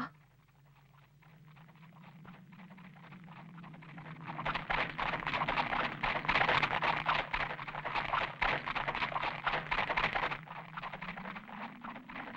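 Rapid hoofbeats of a galloping camel coming closer, building up and loudest for about six seconds in the middle before easing, over a low steady hum. A short sharp click right at the start.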